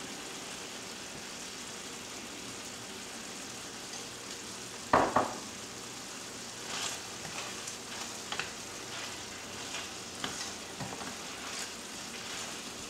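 Chicken stew in a cream sauce sizzling as it simmers in a stainless steel sauté pan. About five seconds in there is one loud knock, then a scatter of small clicks and scrapes as a utensil stirs the pan.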